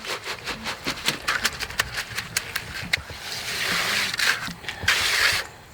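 Quick light taps, about eight a second, then a few rasping scrapes, from hand work on freshly poured wet concrete in a wooden 2x4 form.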